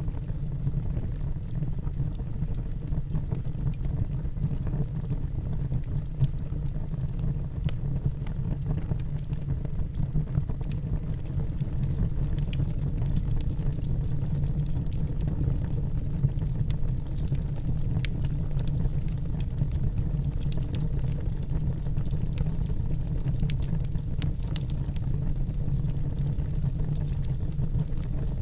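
Wood fire burning in a fire pit: a steady low rumble under scattered small crackles and pops from the burning wood.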